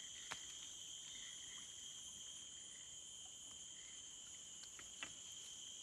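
A steady chorus of insects buzzing at several high pitches at once. Two sharp clicks cut through it, one just after the start and one about five seconds in.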